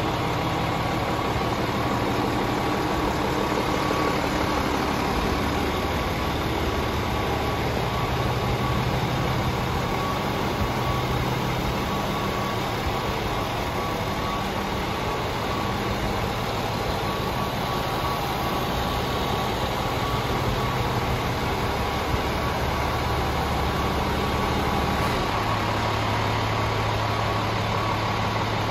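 Scania R450 Euro 6 tractor unit's straight-six diesel engine idling steadily.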